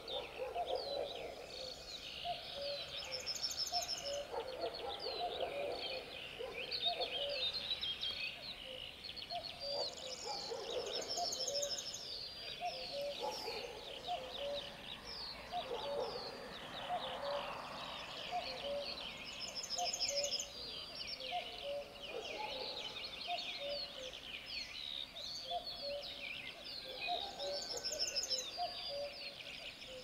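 Morning chorus of many songbirds chirping and singing at once. One bird repeats a short high trill every several seconds, and a steady series of short, low repeated calls runs underneath.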